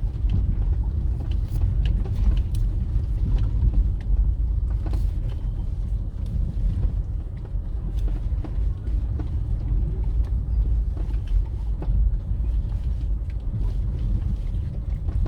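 Steady low rumble of a vehicle travelling along a road, heard from on board, with a few brief knocks.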